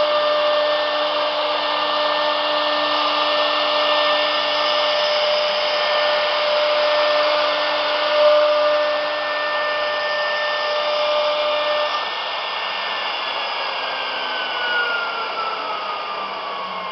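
CNC router spindle whining at a steady high pitch as it cuts grooves into a wood board, with a dense hiss of cutting. About three-quarters of the way through the steady whine stops and a single tone falls steadily in pitch, as the spindle slows.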